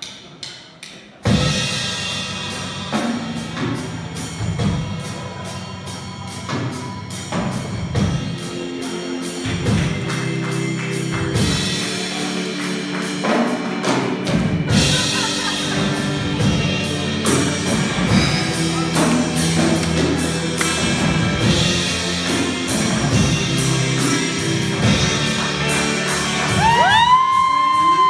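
Live rock band playing: drum kit, electric guitars, bass and keyboards come in together suddenly about a second in and play on steadily.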